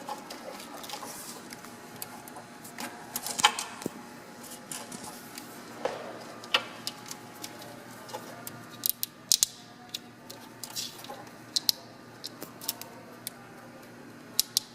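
Scattered sharp clicks and light taps of hand work on small parts and wire connectors, over a faint steady hum.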